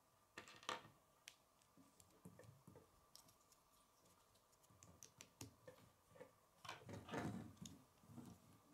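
Plastic K'nex pieces clicking and clattering as they are handled and snapped together, with a few sharp clicks about a second in and a denser run of clicks around seven seconds in.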